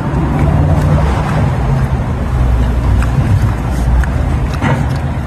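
Steady low rumble of street traffic, a car engine running close by, with one short click about four and a half seconds in.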